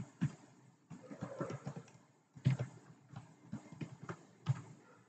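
Computer keyboard being typed on: runs of short key clicks with brief pauses between them.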